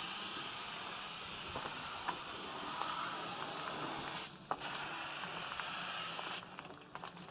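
Paint spray gun hissing as it sprays thinned black enamel onto a truck frame. The trigger is let go briefly about four seconds in, then pulled again, and the spray stops near the end.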